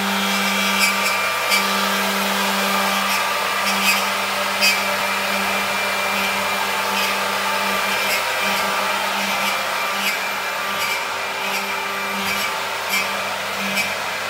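Jomac Try 2712 CNC router running a program: a steady mechanical whir and hum with a constant low tone, broken by occasional sharp clicks.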